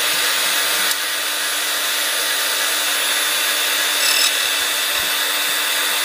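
Silca 007-A portable key duplicator running steadily, its motor and cutter wheel giving a continuous high whine and hiss as a key blank is cut, with a brief louder scrape about four seconds in.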